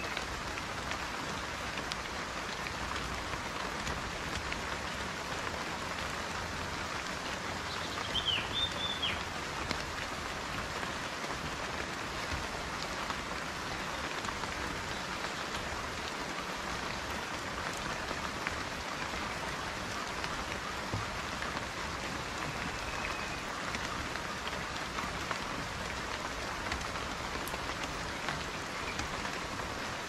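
Steady rain falling on dense leafy foliage. A short high chirp sounds about eight seconds in.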